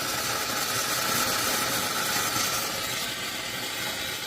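Steam hissing from the steam wand of an old stovetop cappuccino and espresso maker heated with plain water: a steady rushing hiss, a little stronger in the middle.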